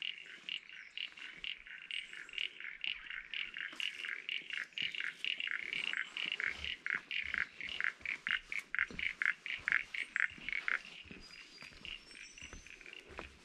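Frogs calling in the swamp: a rapid train of short, high clicking pulses, about four a second, that stops about eleven seconds in.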